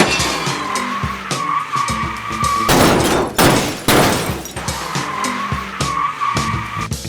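Background music with cartoon toy-vehicle sound effects: a steady high whine that keeps cutting in and out, and two loud rushing whooshes about three and four seconds in.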